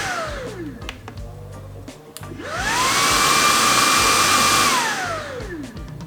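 Dreame T20 cordless vacuum cleaner's high-speed motor spinning down with a falling whine, then switched on again about two seconds in. It rises to a steady high whine with a rush of air for about two seconds, then winds down again.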